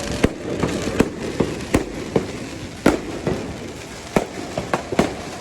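Aerial fireworks bursting in a quick, irregular barrage of sharp bangs, several a second, with the loudest about three seconds in.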